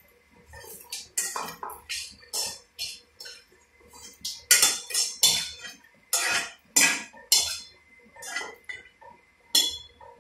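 Wire-mesh skimmer scraping and clinking against a metal kadai and a steel bowl as crisp fried cornflakes are scooped out and tipped across. It comes as a quick, irregular run of short scrapes, loudest in the middle.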